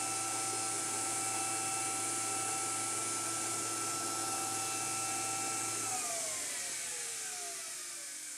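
A trim-router spindle on a CNC router and a shop dust collector running together, a steady high whine over an airy hiss. A little under six seconds in, the router switches off and its whine falls away as it spins down, while the dust collector keeps running on its automatic run-on delay to clear chips.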